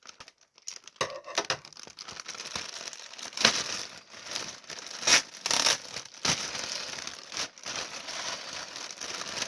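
Plastic packaging being crinkled and torn open by hand, an irregular rustling with several sharper tearing crackles, the loudest about three and a half, five and six seconds in.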